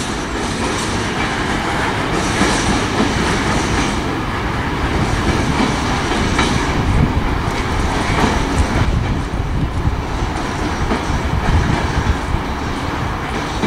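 Freight train of open spoil wagons rolling past on curved track: a steady rumble of steel wheels on rail with a few clacks over the track.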